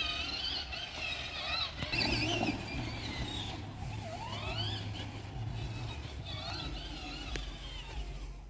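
Huffy Torex battery-powered ride-on toy ATV running: a steady low electric-motor hum, with high wavering squeals and rising glides over it.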